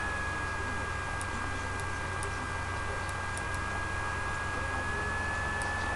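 Steady electrical hum and hiss with a constant high-pitched whine, and a few faint, light ticks scattered through.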